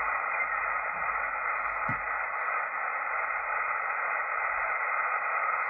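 Kenwood TS-440S HF transceiver on the 20-metre band in USB, giving only steady receiver hiss with no station heard: the band is all but dead in a geomagnetic storm. A faint click about two seconds in.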